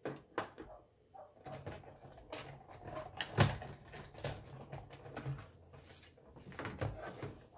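Cuttlebug hand-crank die-cutting machine cutting gift-card notches into cardstock with a tab die. It gives a run of irregular clunks and knocks with a low rumble in the middle stretch as the plates go through, and the loudest knock comes about three and a half seconds in.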